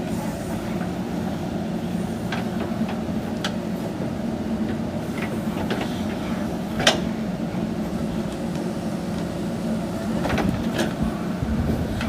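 JCB backhoe loader's diesel engine running steadily while digging, with short sharp knocks at irregular moments, the loudest about seven seconds in.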